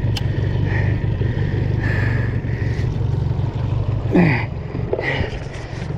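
Small skiff's outboard motor running steadily at low speed, its hum weakening about four seconds in, where a short exclamation falling in pitch cuts across it.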